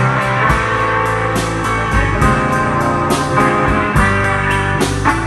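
Live instrumental rock band playing: a Telecaster-style electric guitar over electric bass and a drum kit, with a steady beat of drum and cymbal hits.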